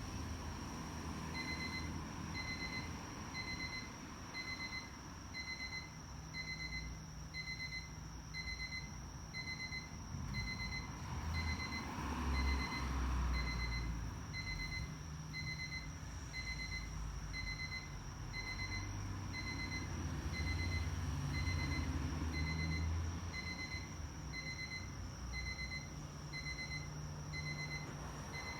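Electronic beeper sounding an evenly repeated high beep, about two a second, starting about a second and a half in, over a low, shifting traffic rumble.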